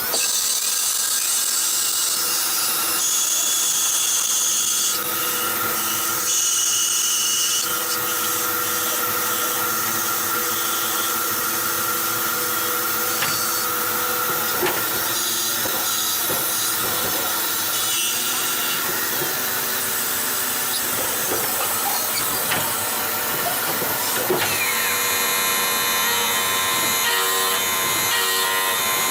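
CNC turning lathe running: a steady machine whine made of several held tones over a hiss. The tones shift at a few points, as the spindle and feed change, and there are a few faint clicks.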